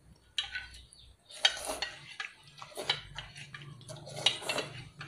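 Eating noodles from a metal pot: a utensil clinks and scrapes against the pot, mixed with slurps, in short irregular bursts.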